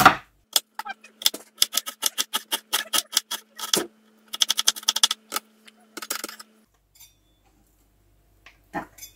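Kitchen knife chopping an onion finely on a wooden cutting board: a quick run of knocks that stops about six and a half seconds in, followed by a few light taps near the end.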